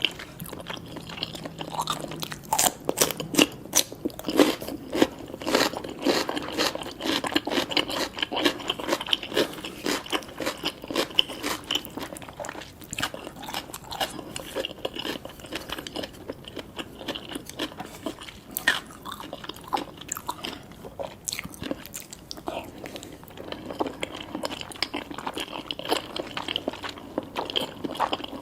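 Close-up eating sounds: continuous chewing and biting of spicy cheese instant noodles topped with tobiko, with many small, crisp, irregular crackles.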